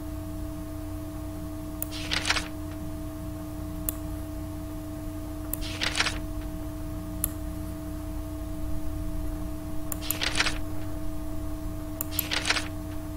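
Computer mouse clicks in four brief clusters a few seconds apart, over a steady electrical hum.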